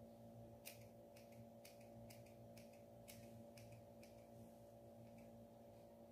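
Scissors snipping a small dog's fur around its ear: faint, crisp snips about twice a second, over a low steady hum.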